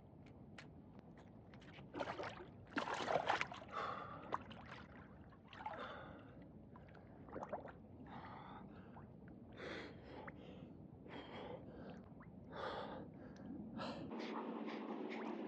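A person breathing in sharp gasps and heavy exhalations, at an uneven pace, the breathing reaction to immersion in ice-cold water. The loudest gasps come about two to four seconds in.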